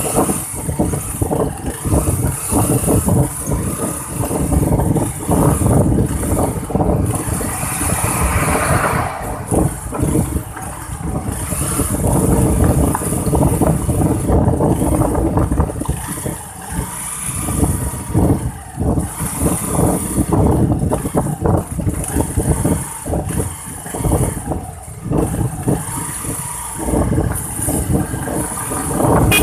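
A motor vehicle running along the road, its engine and road noise rising and falling unevenly.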